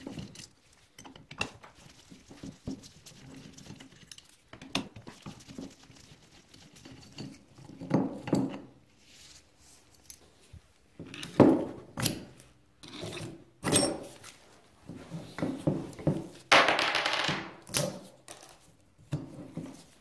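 Metal tools and the aluminium cylinder head of a Honda ATC 90 knocking and clinking on a wooden workbench, in scattered irregular taps. About three-quarters of the way in comes a longer scraping as the old port gasket is pried and scraped off the head.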